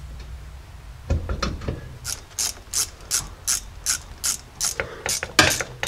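Hand ratchet wrench clicking steadily, about three clicks a second, as the U-joint bolts are run in at the rear axle's pinion yoke; a few knocks come first, about a second in.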